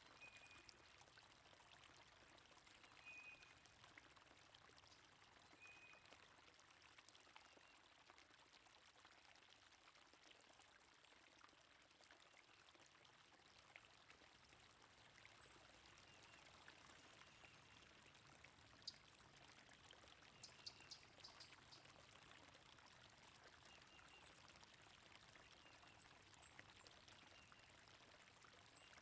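Faint running water from a stream, a soft steady rush, with a few short high bird chirps here and there.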